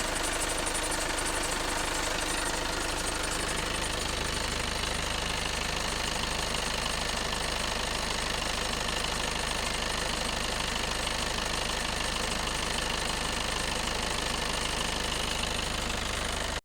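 Audi A3 8V 2.0 TDI four-cylinder diesel idling steadily under an open bonnet, with a periodic squeaking noise that keeps coming and going, loudest near the turbocharger. The owner suspects a turbo fault, though two Audi dealers found nothing wrong.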